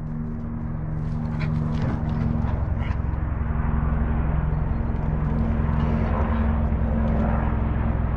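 A motor or engine hums at a steady pitch and grows gradually louder. A few faint knocks sound in the first three seconds.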